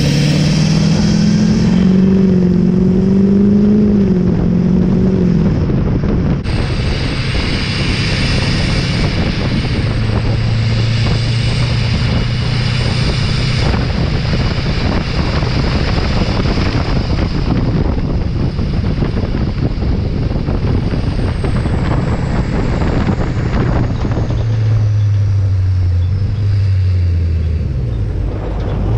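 LLY Duramax 6.6 L V8 turbo-diesel heard at the tailpipe while the truck drives: the engine pulls and rises in pitch for the first few seconds, then cruises steadily under heavy wind and road noise with a faint high whine, and drops in pitch near the end as it slows.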